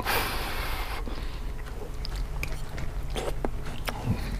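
A person eating a spoonful of soft pasta soup, chewing with the mouth close to the microphone. A short noisy rush of breath or mouth sound comes in about the first second, then quieter chewing with a few small mouth clicks.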